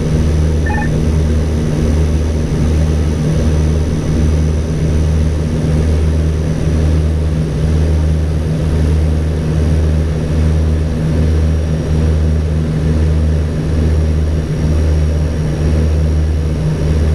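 Cockpit drone of an ATR 42-320's twin Pratt & Whitney Canada PW121 turboprops and propellers at approach power, steady with a slow low throb about once a second.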